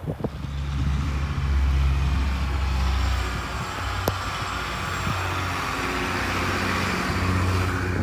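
Motor vehicles on a snow-covered city street. A low engine drone runs for the first few seconds, then a steady rushing sound as a bus goes by, with a single sharp click about four seconds in.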